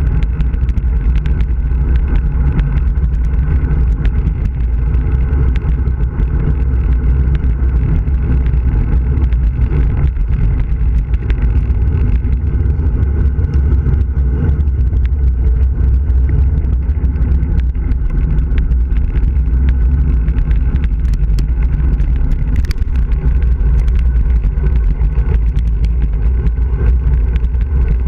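Loud, steady wind rush buffeting the microphone of a handlebar-mounted camera on a road bike descending at speed.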